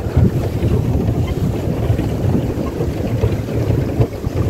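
Wind buffeting the microphone aboard a small motorboat under way across a lake, a heavy, choppy low rumble.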